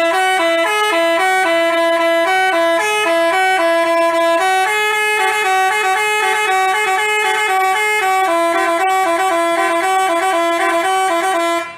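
Basuri telolet horn, the multi-note musical bus horn, playing a quick stepping melody with several notes sounding together. It starts suddenly and cuts off just before the end.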